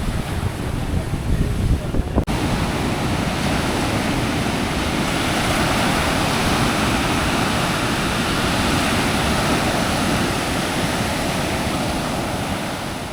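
Sea surf washing steadily onto a beach, with wind buffeting the microphone and a brief dropout about two seconds in.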